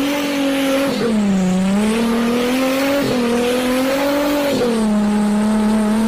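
Off-road Jeep Cherokee's engine running hard at high revs while it ploughs through deep mud, its pitch dipping and climbing with the throttle over a rough hiss of churning mud and spray.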